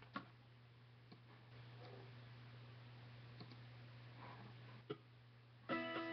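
Quiet room hiss with a steady low hum and a few soft clicks, then near the end a guitar comes in with the first strummed chord of the song's intro.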